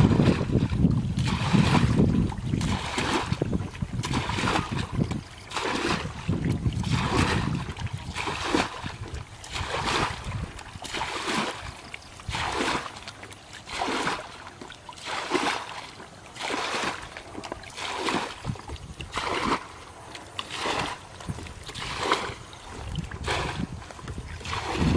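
Muddy ditch water bailed out with a bucket: a scoop and a splash of thrown water about every second and a half. Wind noise on the microphone in the first few seconds.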